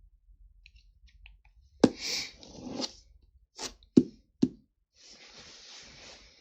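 Handling noise close to the microphone: a sharp knock followed by a second of rustling, three quick taps, then a softer rustle near the end.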